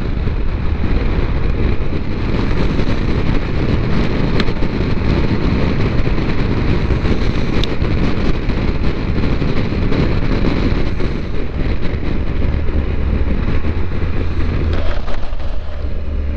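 Wind buffeting the microphone over the three-cylinder engine of a Triumph Tiger 1200 motorcycle on the move; the wind noise comes from the bike's lowered windscreen. Near the end the wind eases as the bike slows.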